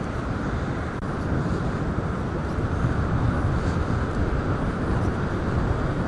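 Strong storm wind buffeting the microphone in a steady low rumble, over the noise of rough surf breaking on the shore.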